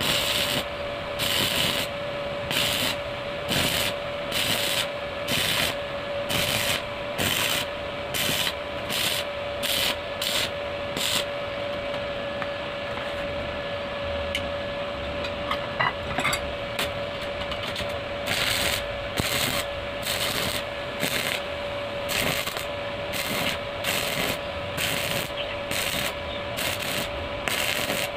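Stick arc welding: the arc crackles in regular pulses, about one and a half a second, stops for several seconds midway, then picks up again. A steady hum runs underneath throughout.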